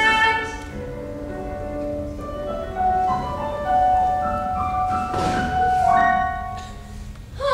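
Instrumental musical-theatre accompaniment playing on as a song ends: a slow melody of single held notes that steps up and down.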